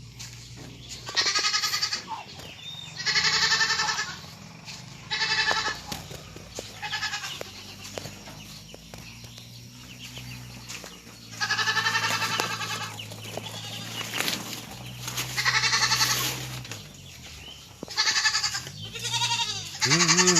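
Livestock bleating: about seven loud, wavering bleats of a second or so each, a few seconds apart, over a steady low hum that fades out near the end.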